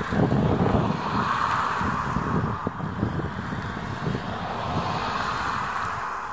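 Wind buffeting the microphone in uneven gusts, over a steady rushing noise that swells about a second in and fades toward the end.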